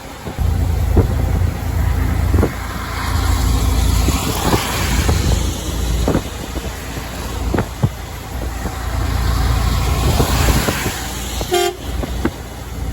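Truck driving on the highway, a steady low engine and road rumble with scattered short knocks. About eleven and a half seconds in comes one short toot of the truck's horn.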